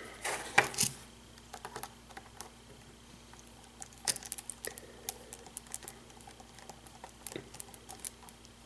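Scattered light metallic clicks and taps of a lock cylinder and its key being handled, as the key is worked in to lock the cylinder up again.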